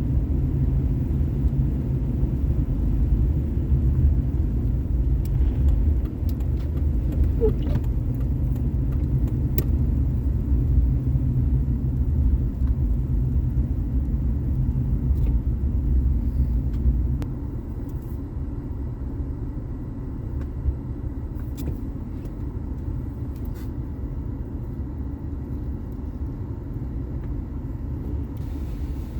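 A car driving: steady low road and engine rumble that turns noticeably quieter about seventeen seconds in.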